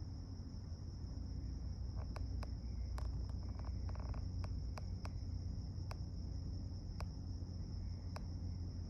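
Steady low droning hum of unknown origin that sounds like helicopters and generators running together. A continuous high insect trill, likely crickets, runs above it, with scattered sharp clicks through the middle and end.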